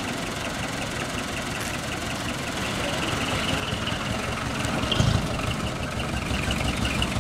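Small decorated dump truck's engine running at low speed as it drives slowly, with a steady rapid low pulsing.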